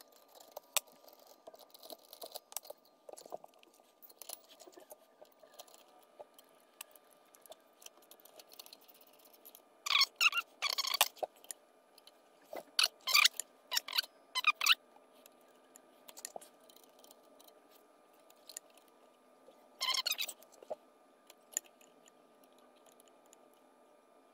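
Small metal tools and fittings clicking, clinking and scraping during bench work on a turbocharger's wastegate actuator arm. The sounds come in a few short clusters about ten to fifteen seconds in and again near twenty seconds, with faint handling noises between them.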